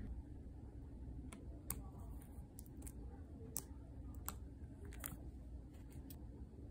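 Light clicks and scrapes, about a dozen scattered over several seconds, as a painting knife trims soft sealing wax around a brass wax-seal stamp on a silicone mat and the stamp is worked free, over a low steady background rumble.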